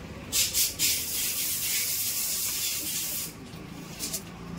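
Nylon fishing net rustling as it is pulled out of its bundle and stretched by hand: a steady high rustle with a few louder swishes about half a second in, easing off a little after three seconds.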